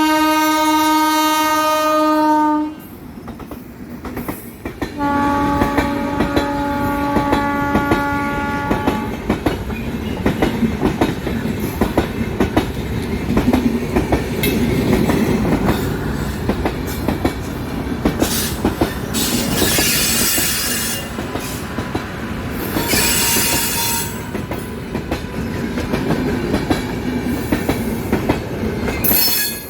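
Indian express train's locomotive horn sounding two long steady blasts, the first about two and a half seconds long and the second about four seconds long a few seconds later. Then the train runs past, with a steady rumble and the clickety-clack of its wheels over the rail joints, and a few short bursts of high hiss.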